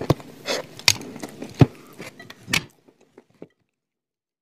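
Mouth-close crunching of edible chalk coated in cream: a handful of short, sharp crunches while chewing, then the sound cuts off abruptly about two and a half seconds in.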